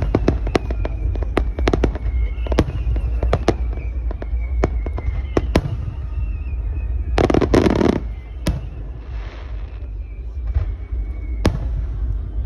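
Aerial fireworks shells bursting in an irregular string of sharp bangs, with a dense, loud cluster of bursts about seven seconds in.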